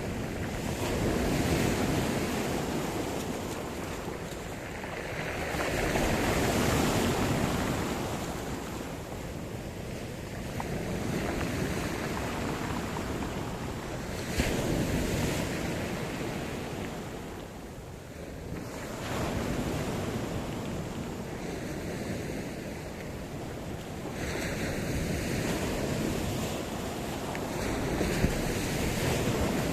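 Sea surf: waves breaking and washing in, the rush swelling and falling away every four to five seconds, with some wind on the microphone.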